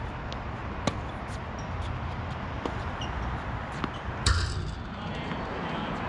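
Tennis ball being played on an outdoor hard court: a string of sharp pops from racket hits and bounces, with a louder impact and a brief rattle about four seconds in, over a steady low background rumble.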